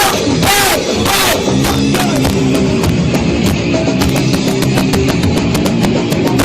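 Heavy band playing live and loud, with distorted guitars, pounding drums and cymbals. A shouted vocal comes in during the first second or so. The recording is overloaded and distorted throughout.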